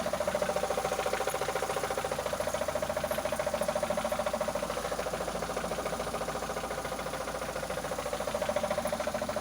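Mitsubishi Lancer 9 engine running with a rapid, even knock. The owner can't tell what is knocking and feels it coming from around the timing belt.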